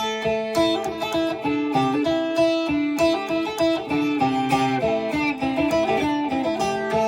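Phin, the Isan Thai plucked lute, playing a quick melody of picked notes over a steady drone note.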